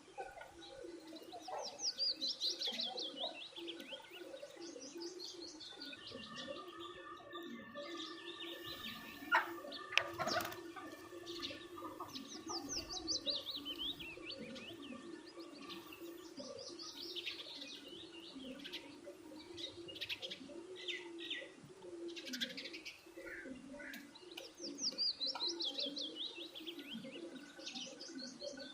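Birds chirping. One bird repeats a fast trill that falls in pitch, four times, among many scattered chirps. There are two sharp clicks about ten seconds in.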